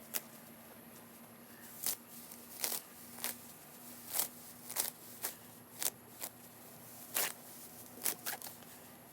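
Weeds and grass being pulled up by hand: a series of short, irregular rips and crunches, roughly one a second, over a faint steady hum.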